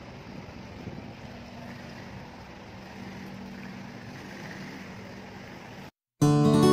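Steady outdoor background noise with a low, even hum. About six seconds in it cuts off abruptly, and acoustic guitar music starts.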